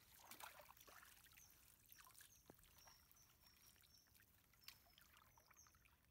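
Faint splashing and trickling of shallow water stirred by people wading and drawing a fishing net, with a run of short, high, faint whistles over it.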